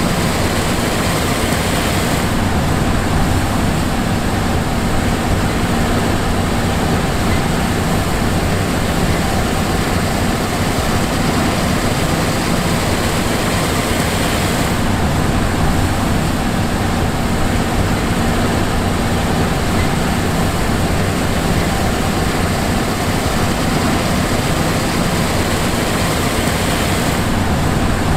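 John Deere S780 combine harvester running steadily: a constant engine drone with a hum of machinery and a hiss over it. The hiss eases a little about two seconds in, returns midway, and eases again near the end.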